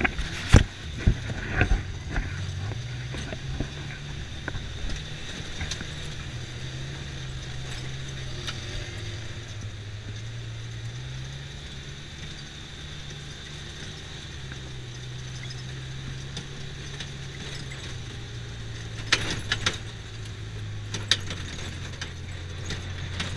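Side-by-side utility vehicle's engine running under way on a dirt track, its hum rising and falling in pitch with speed. Sharp knocks and rattles near the start and again near the end.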